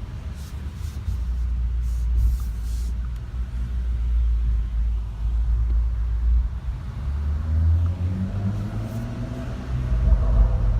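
BMW M135i exhaust running with a deep low rumble, with a cluster of sharp crackles and pops about one to three seconds in. The revs climb about eight seconds in.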